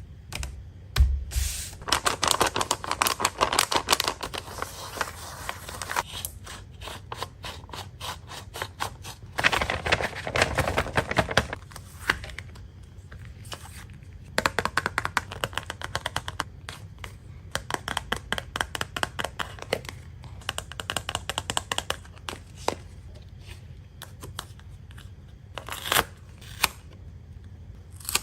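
Paper being handled and cut: rustling and crinkling with scissors snipping, in busy runs of small crackly clicks that thin out in the later part.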